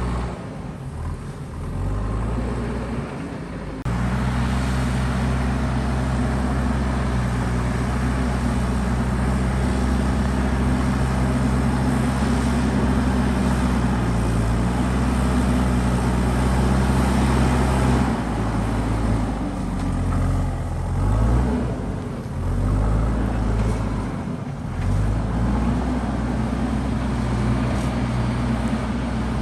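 JCB backhoe loader's diesel engine working under load. It steps up in level about four seconds in, runs steadily for a long stretch, then rises and falls in pitch several times in the second half as the machine works.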